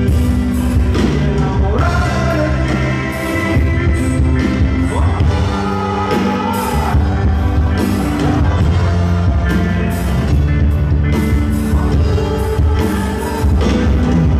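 Live band playing loud amplified music through a PA: electric bass, electric guitar, drums and keyboards, with a sliding lead melody line over them.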